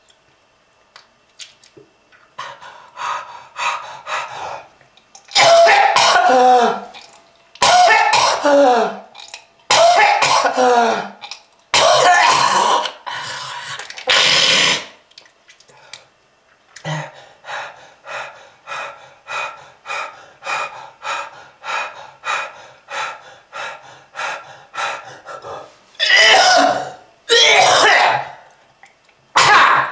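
A smoker's heavy coughing fits: four long hacking coughs, each voiced and falling in pitch, then a run of short quick coughs about three every two seconds, then more hard coughs near the end.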